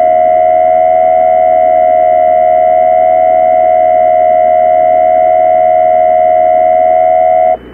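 Emergency Alert System–style attention signal: a loud, steady two-tone alarm held for about seven and a half seconds, cutting off suddenly near the end.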